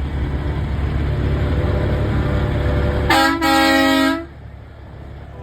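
Semi truck air horn sounding as a short toot and then a blast of about a second, in a chord of several tones. It sounds over a low, steady rumble that drops away when the horn starts.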